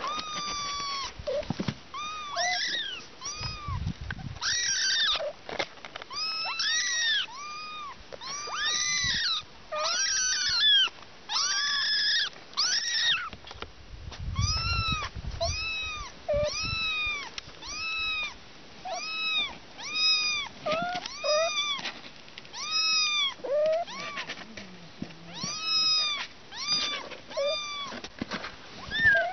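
Young kittens meowing over and over in short, high calls that rise and fall, about one a second. At times two kittens call at once.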